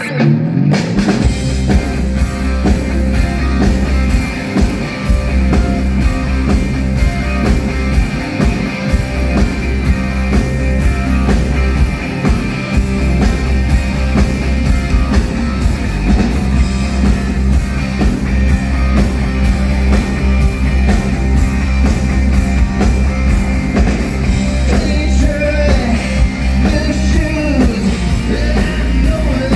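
Live rock band playing loudly with electric guitar and heavy bass; the band kicks in all at once.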